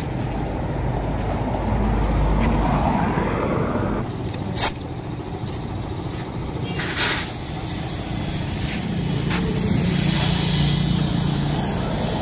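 Compressed air hissing through a tyre inflator chuck into a tubeless 11R22.5 truck tyre on a steel rim. There is one short burst of hiss midway, then a steady hiss over the last few seconds. A low rumble sits underneath, loudest near the start.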